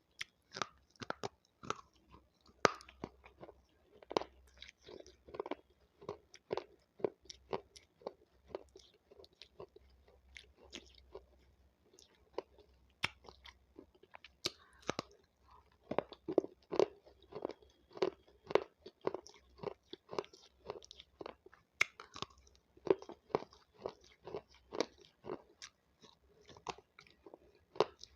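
Raw capsicum (bell pepper) being bitten and chewed: crisp crunches and wet chewing in a steady rhythm of about two chews a second, easing off briefly midway before picking up again.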